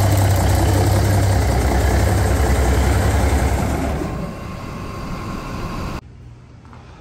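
Cummins NH/NT 855 14-litre six-cylinder diesel idling on a test run, loud and close up. About four seconds in it drops to a lower level, and about six seconds in it cuts off suddenly, leaving only a faint low hum.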